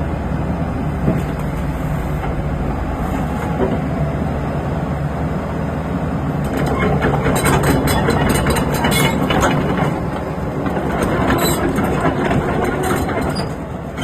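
Kobelco SK75 excavator's diesel engine running steadily, joined about halfway through by a stretch of dense metallic clicking and rattling that eases off near the end.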